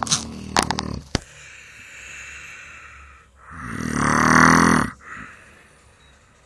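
Snoring: a few short clicks near the start, then one long, loud snore about halfway through.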